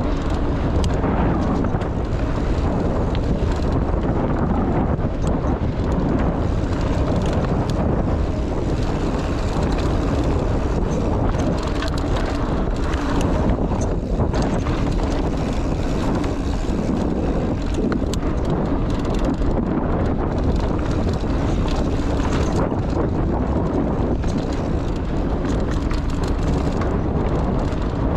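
Mountain bike riding fast down dirt singletrack: wind rushing over the microphone and tyres rolling on the trail, with frequent small rattles and knocks from the bike over bumps.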